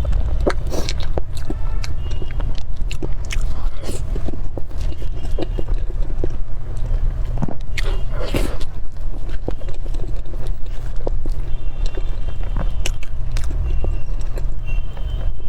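A person eating cream cake close to the microphone: soft wet chewing with scattered mouth clicks and smacks. A steady low hum runs underneath.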